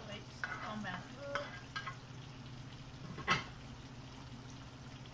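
Sliced mushrooms sizzling in hot frying oil in a pan as they are scraped in with a spoon from a cutting board, with a sharp knock about three seconds in from the spoon or board against the pan. A steady low hum runs underneath.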